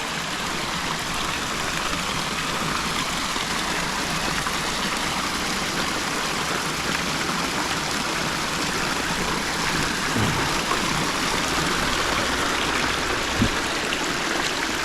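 Waterfall pouring steadily, a continuous rush of falling water, with a brief low thump near the end.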